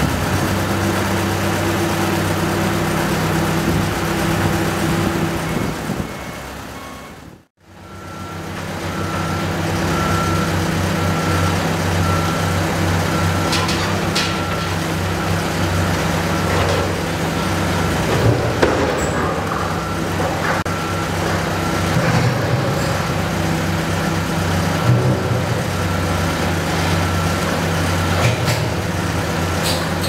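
Diesel engines of heavy construction machinery running steadily, with a steady low hum. It dips out to silence about a quarter of the way through and comes back as a hydraulic excavator works a steel bridge girder, with occasional short metal clanks.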